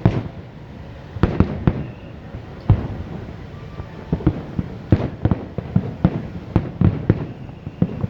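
Aerial fireworks shells bursting: close to twenty sharp bangs in irregular clusters, some in quick runs of two or three.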